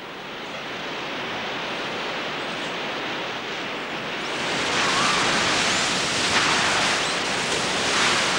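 Hot-spring geyser gushing and spurting steam and water, a steady rushing hiss that grows louder and brighter about four seconds in.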